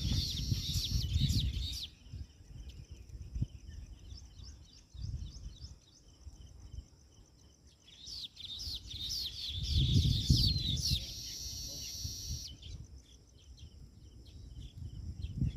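A colony of birds chirping and chattering: loud dense bursts of overlapping calls at the start and again about eight seconds in, with a thinner scatter of chirps between. A low rumble runs under the loudest stretches, and a hiss comes about eleven seconds in.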